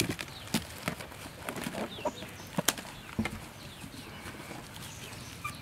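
A few sharp taps and clicks from a glass mixing bowl being handled as a hand presses grated-carrot cake mixture inside it, with chickens faintly clucking and chirping in the background.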